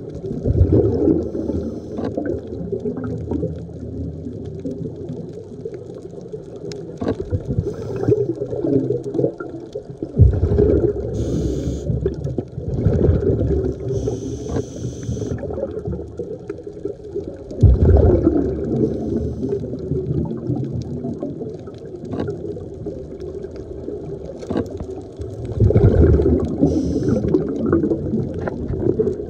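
Scuba diver breathing through a regulator underwater. Slow breaths, each a short hiss of inhalation and then a low gurgling rumble of exhaled bubbles, swelling every several seconds.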